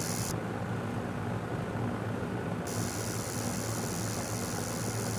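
Steady electrical-sounding hum with a hiss of static over it, with no beat or melody, in the intro of a pop recording. The high hiss thins out for about two seconds near the start.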